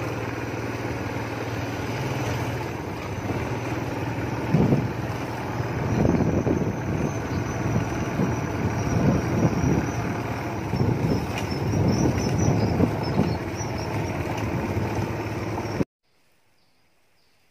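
Motorcycle engine running at a steady cruise, with wind rushing over the microphone in gusts while riding a rough, broken-asphalt road. The sound cuts off abruptly to near silence about sixteen seconds in.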